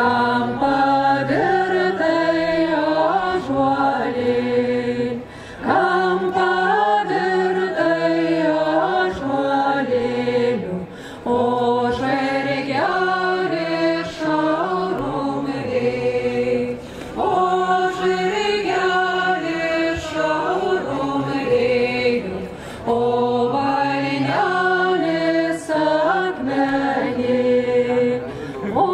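A group of voices singing a Lithuanian folk song in held notes, in phrases of about six seconds with short breaks between them.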